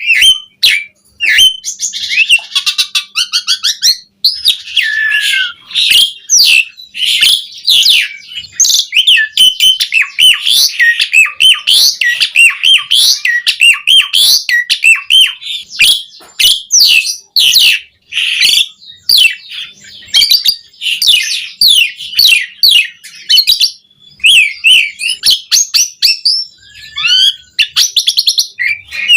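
Asian pied starling (jalak suren) singing loudly and almost without pause: a fast, varied run of chirps, whistles, sliding notes and harsh clicks, filled with phrases mimicked from other birds.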